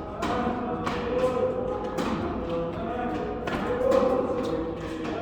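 Tennis balls struck by rackets, a sharp pop every second or so, four or five hits in all. Background music with held notes plays underneath.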